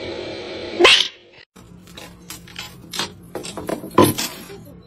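A short loud sound about a second in, then a run of knocks and thumps from a cat tumbling and pouncing on a wooden floor. The loudest thump comes about four seconds in.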